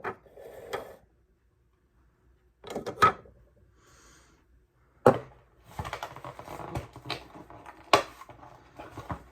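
Lightsaber hilt pieces being handled and set down: scattered clicks and knocks in irregular clusters, a few sharp ones standing out, with a quiet pause of about a second and a half early on.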